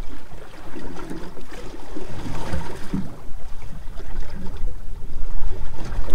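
Wind buffeting the microphone and sea chop lapping against the hull of a drifting boat, an uneven low rumble.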